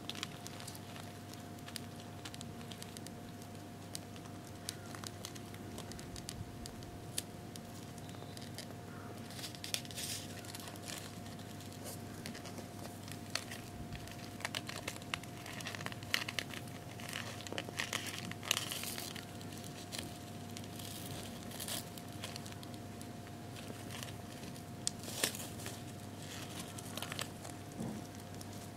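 Mating Japanese rhinoceros beetles making faint, scratchy crinkles and clicks in irregular clusters over a steady low hum.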